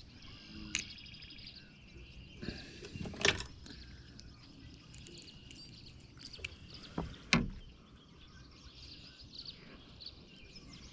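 A few sharp knocks and handling noises from working a hook out of a bluegill that swallowed it; the loudest knocks come about three and a half and seven and a half seconds in. Behind them is a faint outdoor background with a brief run of bird chirps near the start.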